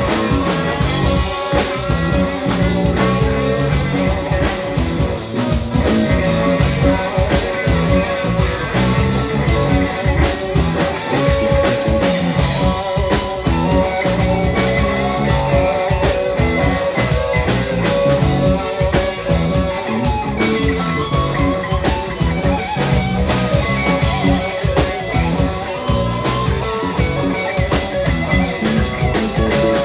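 A rock band playing live: guitar over a drum kit keeping a steady beat, the music dense and continuous.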